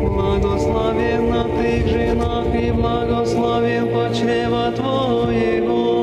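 A small group of women singing an Orthodox church hymn a cappella, in long held chanted lines.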